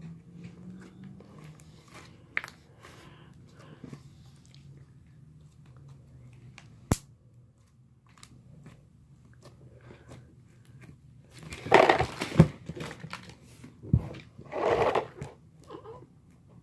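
Slime being squished and poked by hand: scattered sharp clicks and pops, then two louder crackling squishes about two-thirds of the way through.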